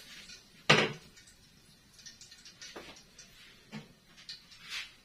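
Kitchen handling sounds: one sharp knock a little under a second in, then a few lighter clicks and taps as cookware and utensils are moved about.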